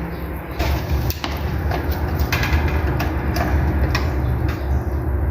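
Contactors on an air-conditioner test rig clacking shut several times at irregular intervals, over the steady low hum of the rig's fan motors running.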